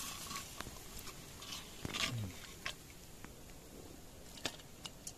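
Scattered light clicks and scrapes of a metal utensil against a cooking pot and a steel plate as goat curry is served, with a brief low sound that falls in pitch about two seconds in.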